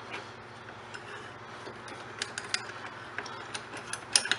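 A two-jaw gear puller and its wrench being worked off a mower blade: irregular light metal clicks and clinks. They are sparse for the first couple of seconds, then come faster, with a sharper clank near the end.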